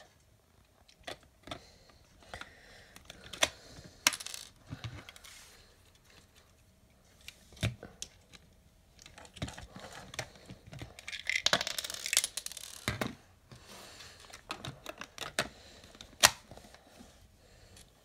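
LEGO bricks clicking and clattering as hands handle and take apart a LEGO puzzle box on a wooden floor: scattered sharp plastic clicks, a longer rattle of loose pieces a little past the middle, and one loud click near the end.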